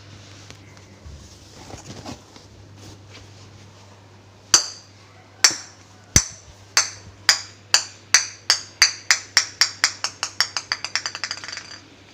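A ball dropped on a hard floor, bouncing: first strike is loudest, then the bounces come faster and faster and fade until it settles, about two dozen in all.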